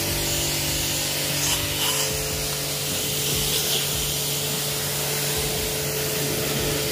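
Aimex D7 1800-watt electric pressure washer running: a steady motor-pump hum under the continuous hiss of the high-pressure water jet spraying onto a motorcycle's exhaust and engine.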